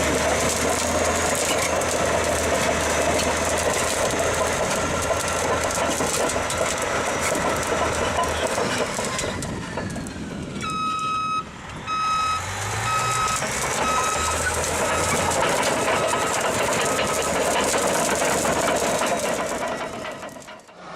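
A bulldozer's diesel engine running under load. Midway, a reversing alarm beeps steadily, about one and a half beeps a second for several seconds.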